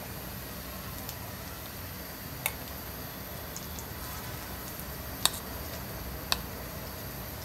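Spoonfuls of gram-flour batter frying in a little hot oil in a steel kadhai with a faint, steady sizzle. A spoon clinks against the steel pan and bowl three times, the loudest about five seconds in.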